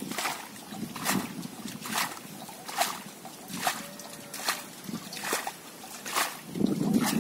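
Water being bailed out of a muddy hole with a steel bowl: an even rhythm of scoops and thrown splashes, a little more than one a second.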